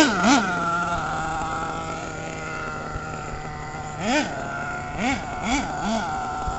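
Radio-controlled monster truck's motor revving in short blips, its pitch jumping up and dropping back each time, once at the start and four times in quick succession about four seconds in, with a steady hum between the blips.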